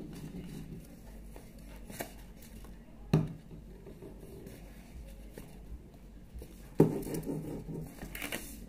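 Paper being folded and handled alongside a glue bottle: soft rustling with a few sharp taps, the loudest about three seconds in, and a busier rustle near the end.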